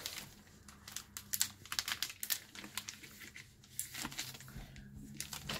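Clear plastic binder pocket crinkling and rustling in irregular crackles as a trading card is pushed into it by hand.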